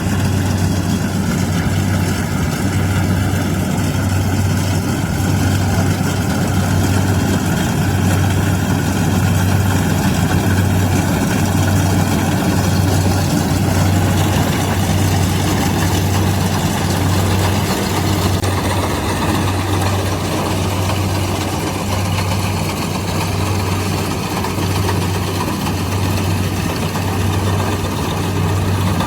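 Kubota DC-70 Plus rice combine harvester's diesel engine and machinery running steadily, with a strong low hum that pulses about once a second.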